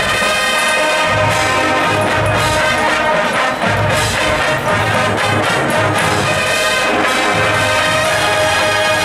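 College marching band playing: brass holding sustained chords over a steady low drum beat.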